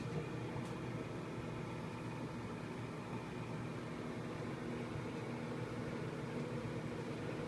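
Microwave oven switching on with a click, then running with a steady hum.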